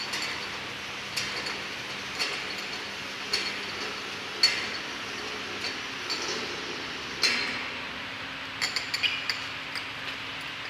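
Empty glass jars clinking against one another and the steel guide rails as a bottle turntable feeds them onto a labeling machine's conveyor, over steady machine noise. Sharp clinks come about once a second, with a quick run of several near the end.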